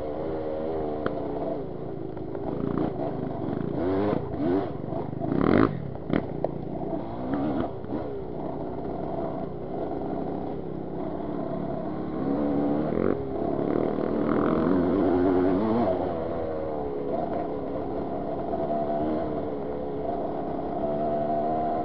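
Yamaha DT 200's two-stroke single-cylinder engine running under way on a dirt trail, its revs rising and falling with the throttle. A few sharp knocks and rattles come about four to six seconds in.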